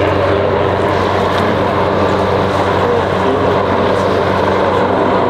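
Helicopter hovering: a loud, steady drone of rotor and engine.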